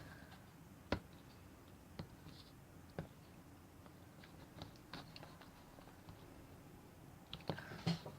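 Faint clicks and taps of a utensil knocking against the container while glue and paint are stirred together for slime, about one a second at first, with a few quicker taps near the end.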